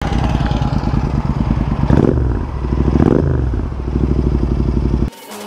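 Motorcycle engine running with a fast, even firing pulse, revved up sharply and dropping back twice, then cut off abruptly near the end.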